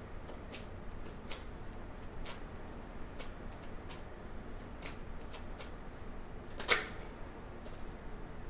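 A tarot deck being hand-shuffled, cards sliding and slapping together in small irregular clicks, with one louder click near the end. The shuffle is for drawing a card to clarify the reversed Star.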